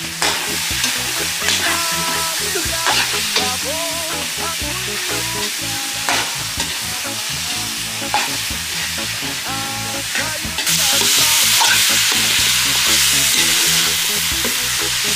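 Chicken pieces sizzling in a steel wok over a charcoal stove while a metal ladle stirs them, clinking and scraping against the pan. About ten and a half seconds in, the sizzling gets clearly louder.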